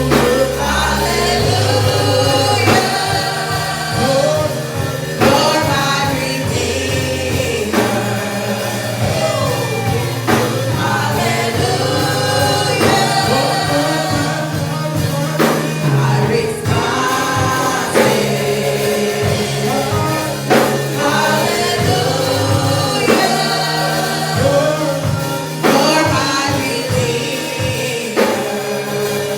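Gospel worship music: a choir or group of singers singing over a band with bass and drums.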